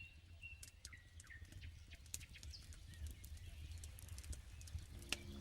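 Campfire crackling: scattered sharp pops and clicks, the loudest near the end, over a low steady rumble, with a few faint short bird chirps in the first second or so.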